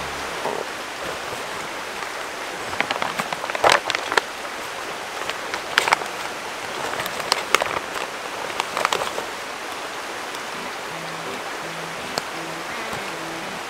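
Creek water flowing steadily, with a run of crinkling and rustling handling noises from about 3 to 9 seconds in as a soft plastic water-filter pouch is handled and packed into a backpack.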